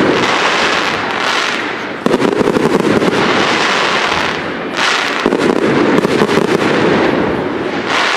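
Professional fireworks display: a dense, continuous crackling from crackle-star shells. New salvos break in sharply about two seconds and about five seconds in.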